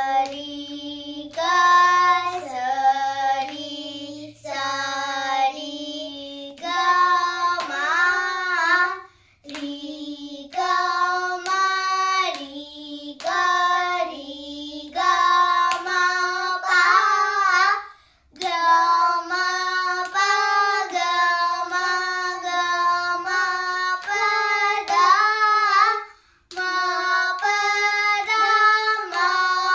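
Two young girls singing a Carnatic alankaram in Misra jati Jhampa tala together in swara syllables (sa ri ga ma), note by note in steps, with short pauses between phrases.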